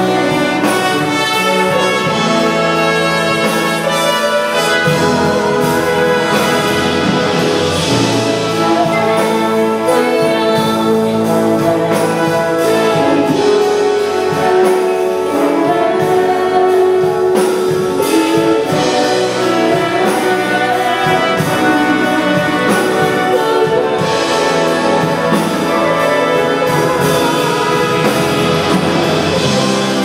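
Concert wind band playing a piece, brass instruments such as trumpets and trombones to the fore over woodwinds, continuous and steady in level.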